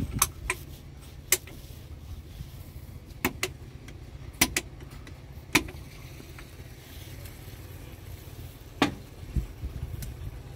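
Sharp metal clinks of a steel hand tool against an excavator's hydraulic control valve block while the boom holding valve is being tightened, about nine scattered clinks, some in quick pairs, over a steady low rumble.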